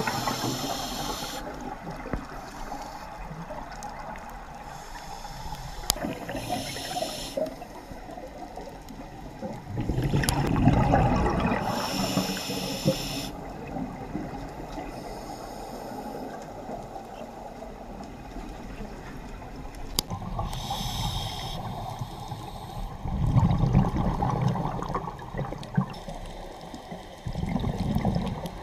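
Scuba diver breathing through a regulator underwater: a few slow breaths several seconds apart, each a short hiss of inhaled air and a longer rush of exhaled bubbles, with faint clicks and crackle underneath.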